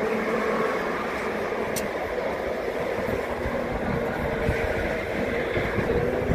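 Twin jet engines of a taxiing Airbus A321 running at low taxi power: a steady rushing noise with a droning hum underneath.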